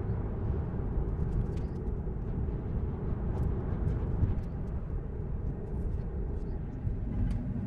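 Road and tyre noise heard inside a Tesla electric car's cabin as it drives and slows on a two-lane road: a steady low rumble with no engine note.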